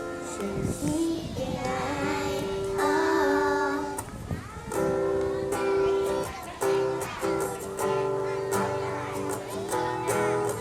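Young children singing a song together with instrumental accompaniment: sustained melody notes over a bass line, with short breaks about four and six and a half seconds in.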